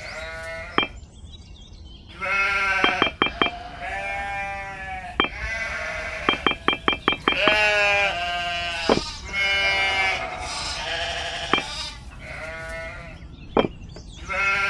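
Sheep bleating again and again, each bleat a wavering call under a second long. Between the bleats, miniature clay bricks click sharply as they are set down, several times in quick runs.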